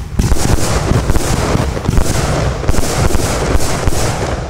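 A 131-shot compound firework cake with 25–30 mm tubes fires rapidly: launch thumps and shell bursts come several a second and overlap into a continuous barrage. It dies away at the very end.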